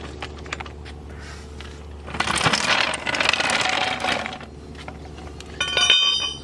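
Metal tire-changing tools being handled: a couple of seconds of scraping and rattling, then near the end a sharp metallic clank that rings briefly.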